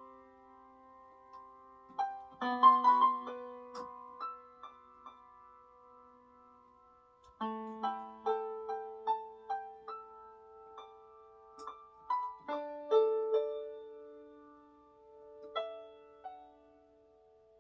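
Small digital keyboard with a piano sound, played slowly and softly: chords and single notes struck in short phrases and left to ring and fade, with a quieter lull of fading notes a few seconds in.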